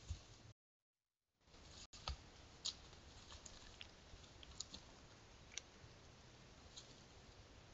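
Near silence: faint woodland ambience with a low hiss and scattered soft ticks and clicks. It drops to a second of complete silence near the start where the recording cuts.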